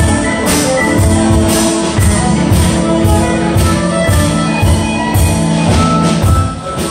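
Live contra dance band of keyboard, fiddle and percussion playing a dance tune with a steady beat of about two strokes a second.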